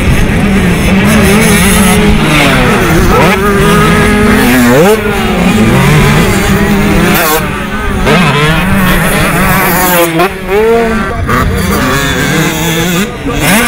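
Several motocross bikes revving hard as they race through a dirt-track corner. The engine pitch rises and falls again and again as the riders accelerate, shift and back off.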